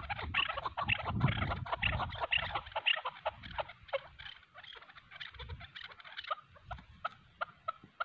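Chukar partridges calling: a rapid run of repeated chuck notes, densest in the first three seconds and thinning out after, with another burst a little past the middle. A low rumble sits under the first two seconds.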